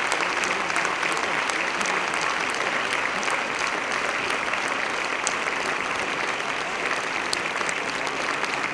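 Audience applauding steadily, a dense, even clapping from a large crowd.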